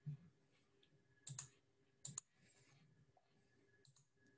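Computer mouse clicking a few times, including quick double clicks, with near silence between the clicks.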